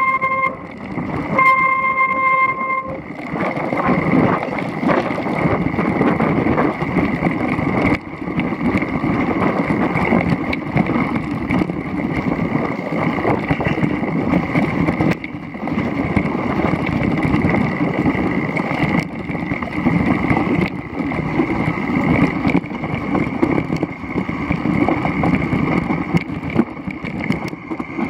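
Mountain bike rolling fast over a wet, rocky trail, with a continuous jumble of rattle, tyre rumble and wind noise on the bike-mounted camera. Near the start there are two short, steady high squeals about a second apart.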